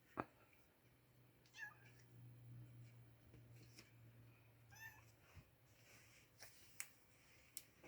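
Oriental shorthair kittens mewing faintly: two short, high-pitched mews, with a few sharp clicks and a low steady hum between them.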